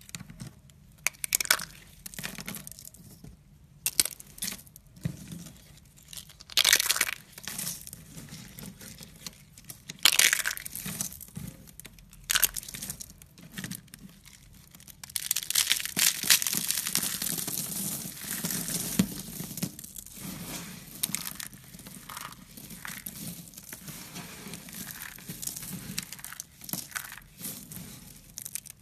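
Hands snapping and crushing a brittle rose and leaves made of a chalky craft material into flakes. Separate sharp cracks and crunches come first. About halfway through, a longer stretch of steady crunching and rustling shards starts, followed by lighter crackling as the flakes are rubbed and stirred.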